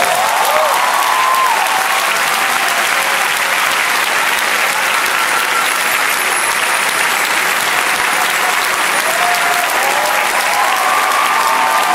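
Large concert audience applauding steadily in welcome, with a few voices calling out over the clapping near the start and again near the end.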